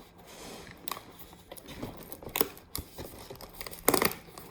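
Cardboard advent calendar and its packaging being handled and pried open: scattered clicks and crinkles, with a louder rustle about four seconds in.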